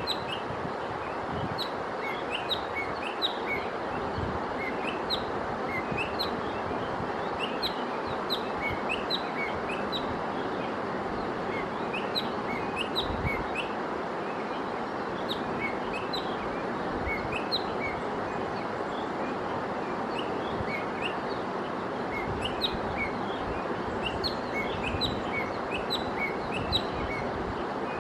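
Small birds chirping: short high chirps, repeated many times, over a steady background hiss.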